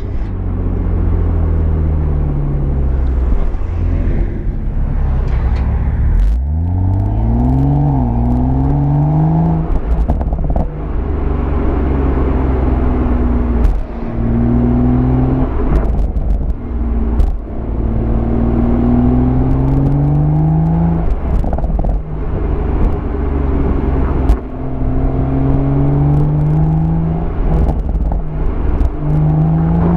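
BMW M140i's turbocharged straight-six accelerating hard through the gears. The exhaust note rises in pitch over a few seconds, drops briefly at each gear change, then climbs again, several times over a heavy low rumble.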